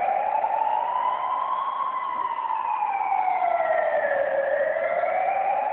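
A wailing siren, its pitch sweeping slowly up and down: it rises to a peak about two seconds in, falls to its lowest about four seconds in, and starts rising again near the end.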